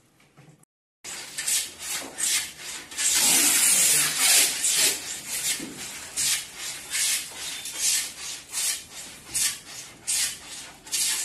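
Back-and-forth hand rubbing with an abrasive on the plywood cabinet's edges, starting about a second in: quick rasping strokes at about two to three a second, with a couple of seconds of unbroken rubbing in between.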